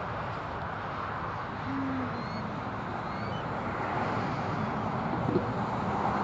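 Steady distant traffic hum, with a single short low hoot-like bird call about two seconds in and a few faint high chirps just after.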